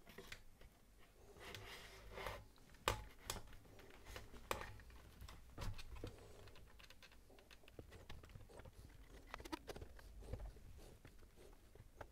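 Faint scattered clicks, knocks and light scraping as a portable radio's cabinet is handled and slid down over its metal chassis, with one sharper knock about three seconds in.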